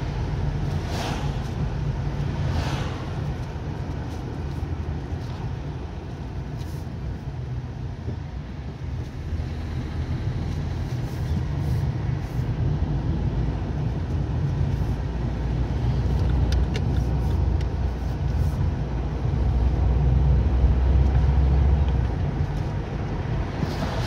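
Car's engine and tyre noise heard from inside the cabin while driving: a steady low rumble that grows louder for a few seconds near the end.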